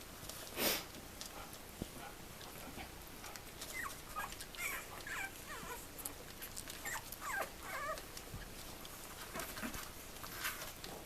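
Newborn puppies squeaking and whimpering in a cluster of short, high cries in the middle, after a short noisy burst about a second in.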